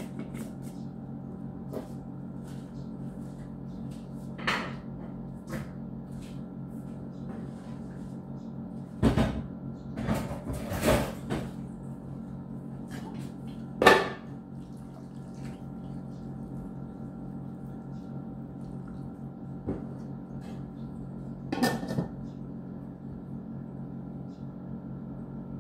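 Kitchen clatter: scattered knocks and clinks of pots, lids and utensils being handled, loudest in a cluster about nine to eleven seconds in and a sharp knock about fourteen seconds in, over a steady low appliance hum.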